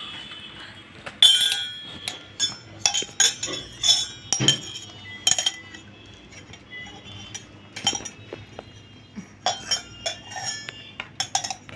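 Stainless steel tumblers, plate and spoon clinking and clattering as a toddler handles them: a string of irregular sharp metallic clinks with a short ring after each, the loudest about a second in.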